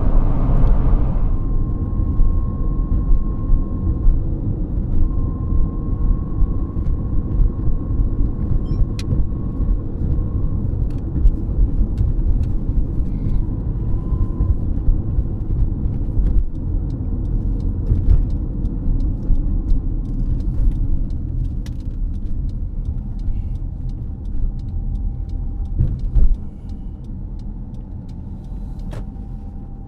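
Car driving along a road: a steady low rumble of road and engine noise with a faint whine, easing off noticeably near the end.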